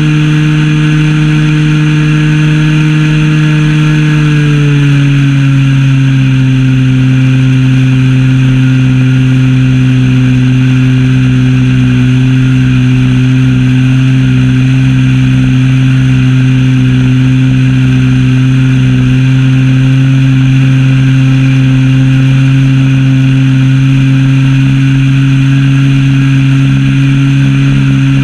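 Zenoah ZP 20 two-stroke gas engine of an RC model plane running loud and steady, heard from a camera mounted on the plane; the engine note drops about five seconds in as the throttle is eased back, then holds steady.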